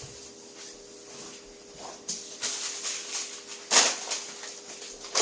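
Butter sizzling faintly in a frying pan under a grilled bologna-and-cheese sandwich, over a steady low hum. A few brief rustles and clatters of handling cut in over it, the loudest a little before four seconds in.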